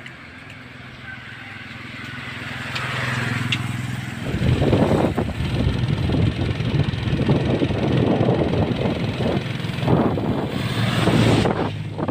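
A motor vehicle's engine hums, growing louder over the first few seconds. From about four seconds in, a loud, rough rushing noise takes over, with the engine hum still under it.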